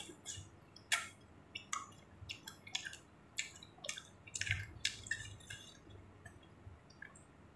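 Close-miked wet chewing and mouth smacking while eating chicken thukpa: an irregular string of short, wet clicks, about two a second.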